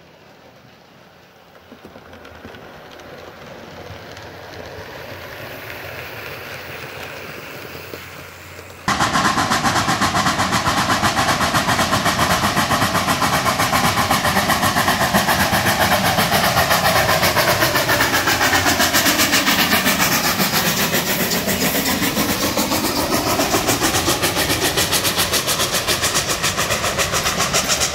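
A model train running on a layout, faint and slowly growing louder; about nine seconds in it cuts suddenly to a much louder Durango & Silverton narrow-gauge steam train passing close by, its locomotive and coaches making a rapid, even clatter on the rails. The train is nearest about two-thirds of the way through.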